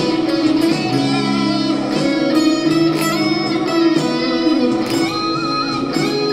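Electric guitar playing a lead solo over a backing track, with a run of melodic notes and a held, wavering note about five seconds in.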